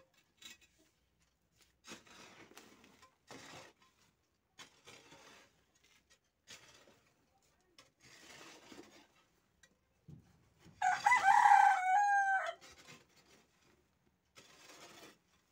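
A rooster crows once, loudly, about eleven seconds in. Around it come repeated soft scrapes of a hoe dragging loose soil into a foundation trench.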